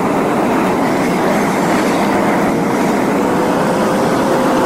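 Steady road and tyre noise inside a car's cabin while driving at highway speed, with a faint whine that comes in about halfway and creeps slightly up in pitch.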